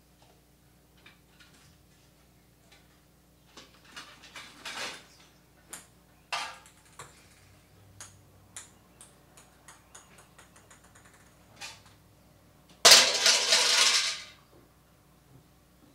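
Experimental noise piece: sparse clicks, knocks and clattering of small hard objects, with short scraping smears, then a loud harsh burst of noise about thirteen seconds in that lasts about a second and a half.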